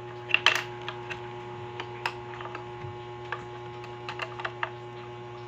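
Small sharp plastic clicks and taps as the bobbin and the plastic bobbin cover plate of a mini sewing machine are handled and fitted, the loudest two about half a second in. Under them runs a steady electrical hum.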